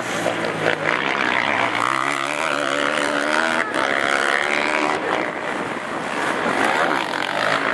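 Racing quad (ATV) engines revving hard, several at once, their pitch rising and falling with the throttle as they climb the hill.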